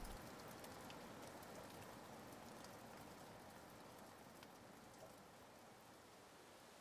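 Near silence: a faint steady hiss with a few scattered faint clicks, slowly fading.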